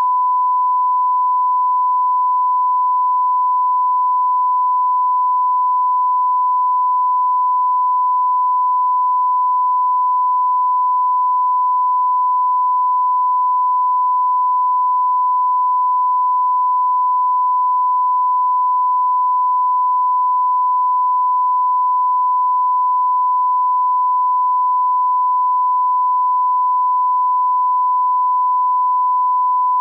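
A 1 kHz reference test tone, the steady sine-wave line-up tone that goes with SMPTE colour bars, held unbroken at one level.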